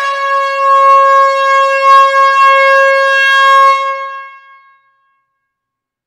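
Air horn in a closed hall sounding one long blast at a single steady pitch, held for about four seconds and then dying away over about a second.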